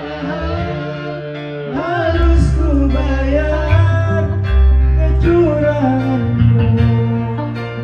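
A man singing a song into a microphone over instrumental accompaniment with long held bass notes; his voice comes in strongly about two seconds in.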